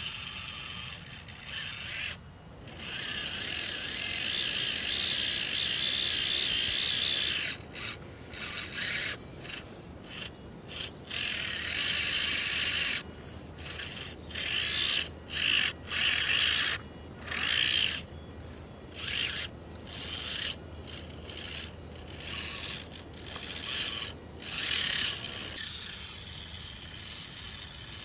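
Losi Micro Trail Trekker 1/24-scale electric RC crawler's motor and geared drivetrain whining in throttle bursts as the truck crawls through loose dirt. There is one longer run of several seconds in the first part, then many short on-off bursts.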